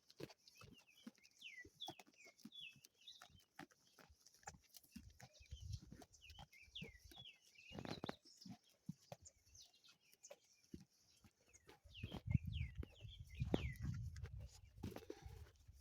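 Sheep grazing close by, with many short crisp clicks of grass being torn and chewed, while small birds chirp with short falling chirps. A low rumble comes in over the last few seconds.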